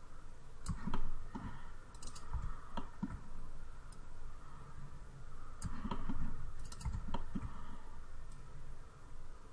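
Computer keyboard keys and mouse buttons clicking irregularly, in small clusters of a few clicks, over a low steady background hum.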